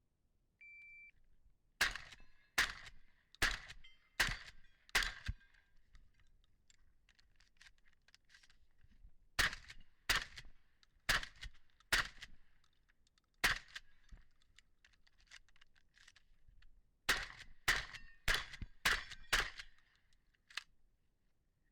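A short electronic start beep, then a pump-action Benelli Supernova 12-gauge shotgun firing about fifteen shots in strings: five shots under a second apart, a pause, four more, a single shot, a longer pause, then five more in quick succession.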